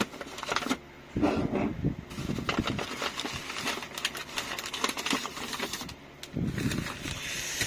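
Plastic food packaging crinkling and rustling as it is handled and unwrapped, a dense run of small irregular clicks and crackles.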